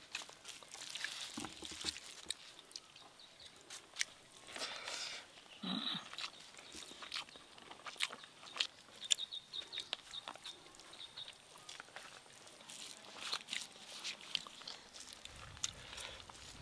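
People eating rice and curry with their hands: scattered short smacks, clicks and chewing noises.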